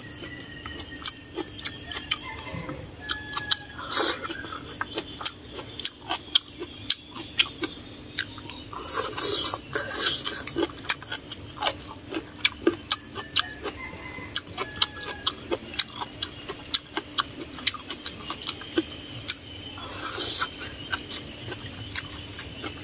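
Close-miked eating of instant noodles with mustard greens: irregular chewing and mouth clicks, with noodles slurped in twice, about nine seconds in and again near the end.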